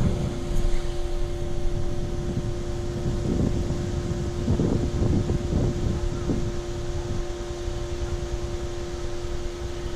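Wind buffeting the microphone in uneven gusts, over a steady mechanical hum.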